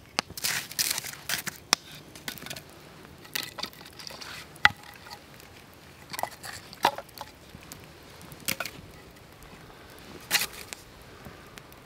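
Irregular knocks, clicks and short crunches of split firewood sticks being handled and set down in the ashes of a smouldering campfire, with a few louder knocks about a second in, near the middle and near the end.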